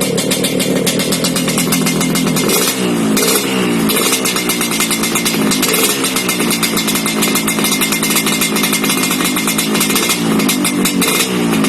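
Yamaha RX-King's 135 cc two-stroke single running through an aftermarket underslung 'kolong' exhaust, sounding crisp and solid, with a fast popping beat. The revs are blipped, rising and falling about three seconds in and again near the end.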